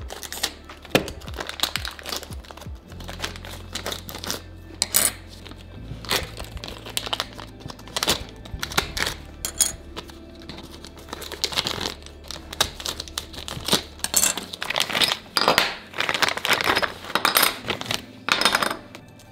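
Plastic parts bags crinkling and being cut open with a utility knife, with carbon-fibre frame plates and arms clicking and clacking as they are handled and set down on a wooden desk. Background music with a low bass line runs underneath.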